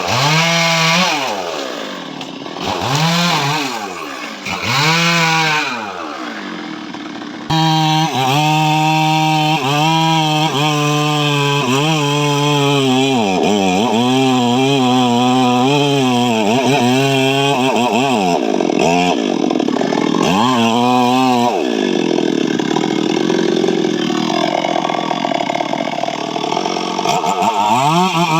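Stihl MS 382 two-stroke chainsaw revving up and down several times, then running at full speed with its pitch repeatedly dipping and recovering as it cuts into mahogany. Near the end the engine speed drops lower.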